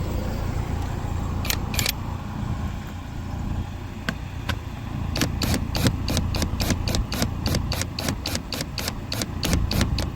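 Ratcheting tool clicking at about four clicks a second while a screw is tightened down, after a couple of single clicks, over a steady low rumble.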